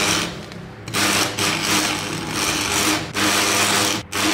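Stick (electrode) arc welding: the arc's loud hissing crackle, laid down in several stretches with a longer break about half a second in and short breaks near three and four seconds.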